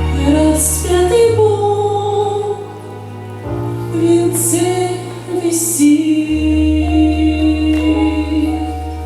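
Music: a woman singing a slow hymn over a backing track with long held bass notes that change twice.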